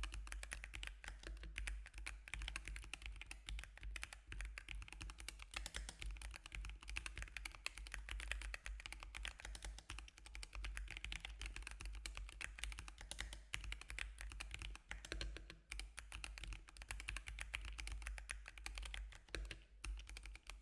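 Typing on a Zeeyoo 65% mechanical keyboard: a fast, continuous run of key clicks, with a short pause about three quarters of the way through and another near the end.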